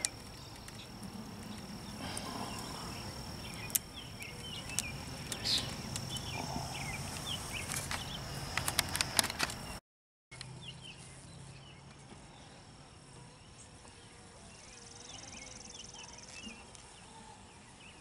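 Honeybees buzzing over an open hive, with scattered clicks and knocks from the wooden frames and hive box being handled. The sound drops out briefly about ten seconds in and comes back quieter.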